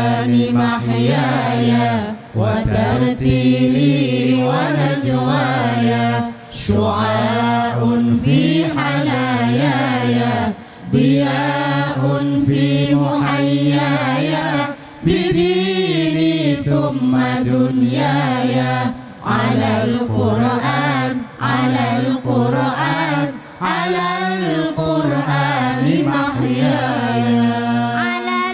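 Several men's voices chanting together unaccompanied into microphones: an Islamic devotional chant in long held, melismatic notes, with a short breath-pause every few seconds.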